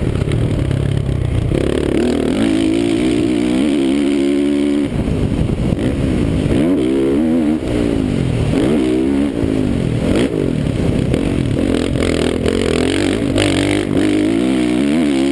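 Dirt bike engine heard from the rider's helmet camera, revving up and falling back again and again as the throttle is worked over jumps and through turns, with brief lulls off the throttle.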